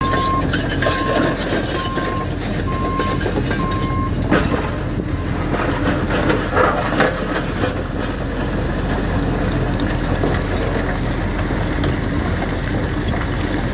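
Heavy construction machine's diesel engine running, with its reversing alarm beeping about once a second for the first five seconds. A few sharp knocks about four and seven seconds in.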